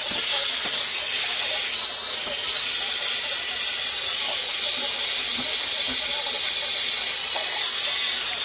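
Plumber's soldering torch hissing steadily with a thin high whistle, heating soldered copper water-supply joints.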